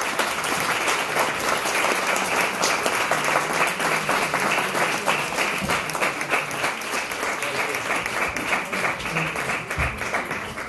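Audience applauding: many hands clapping steadily, easing off a little near the end, picked up by a phone's built-in microphone.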